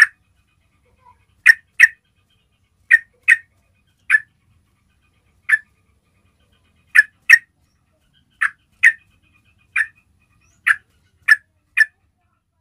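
Yellow-vented bulbul giving its basic call: short, sharp notes, about fifteen of them, some single and some in quick pairs, spaced roughly a second apart.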